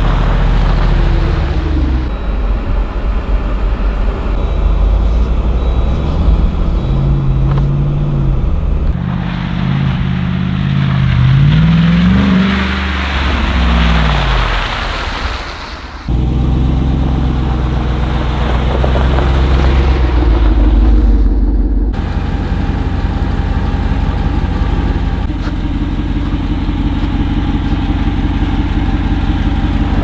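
Jeep Wrangler 392's 6.4-litre V8 engine running and revving. The pitch rises and falls about halfway through, and the sound changes abruptly several times as the clips are cut together.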